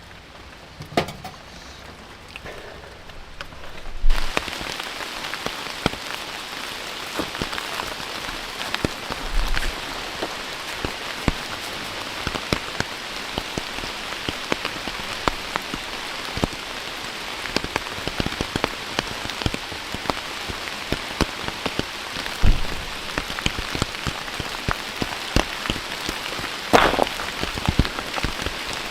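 Heavy rain falling and pattering on surfaces, a dense hiss full of individual drop hits. It comes in abruptly about four seconds in after a quieter start with a few knocks, and a few louder drops or knocks stand out near the end.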